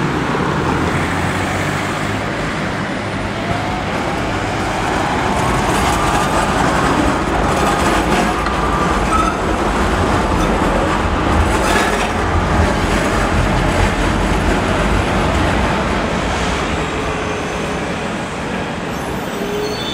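Street traffic, then a modern articulated low-floor tram passing close by. Its low rumble builds from about five seconds in and fades after about sixteen seconds, with faint wavering whines and a few clicks from the wheels on the rails in the middle.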